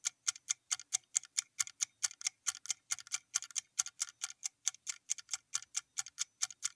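Ticking sound effect like a fast clock or countdown timer: sharp, evenly spaced ticks, about six a second, fairly quiet.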